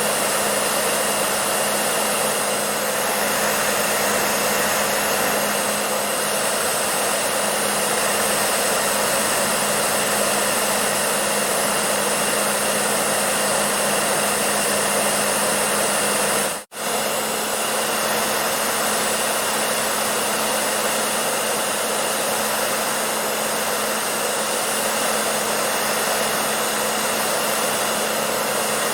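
Hair dryer running steadily: a constant rush of air over a low motor hum and a faint high whine. It cuts out for an instant about two-thirds of the way through, then runs on.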